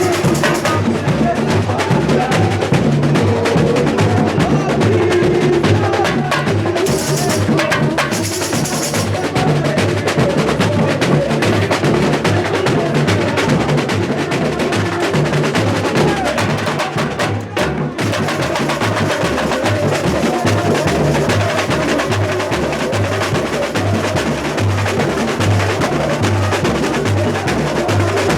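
Samba school bateria, a large percussion ensemble of surdo bass drums, snare drums and smaller hand percussion, playing a steady samba groove with a driving low drum pulse. The sound dips briefly about seventeen seconds in.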